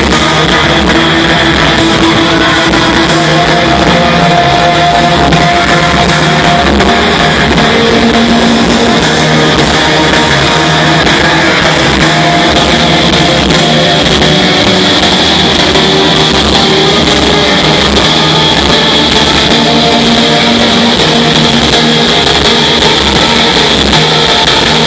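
Loud live rock band with electric guitars and drums playing a song without a break.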